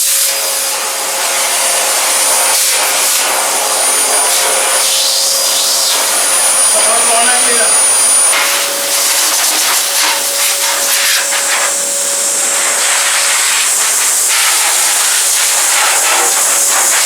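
Eureka Forbes Euroclean X-Force 1400-watt canister vacuum cleaner running: a steady rush of air with a steady whine, its pitch shifting slightly about eight seconds in. It cuts off abruptly at the end.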